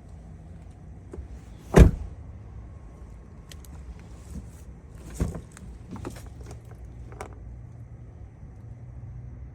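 Thumps and clicks in or around a car: one sharp loud thump about two seconds in, a smaller one a few seconds later, then several light clicks, over a low steady hum.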